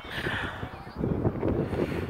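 Wind buffeting the microphone: an uneven low rumble that gusts louder in the second half, with a brief hiss near the start.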